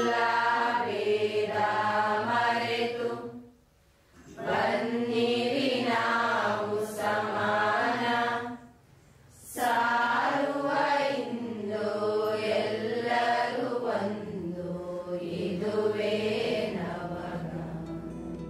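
Slow chant in long, wavering sung phrases, with a low steady hum under the first phrase. It breaks off briefly twice, a few seconds in and about halfway.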